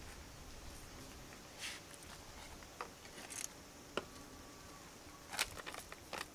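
Handling of a paper packet and scissors: a few short paper rustles and light clicks, with a brief cluster of them near the end as the scissors are set to the packet.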